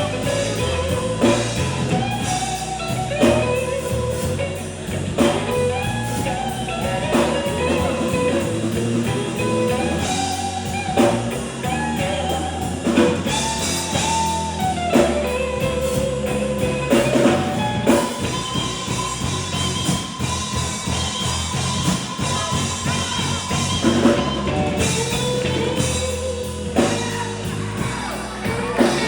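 Live rock band playing an instrumental passage: a lead guitar line with bent notes over a drum kit and a low bass line.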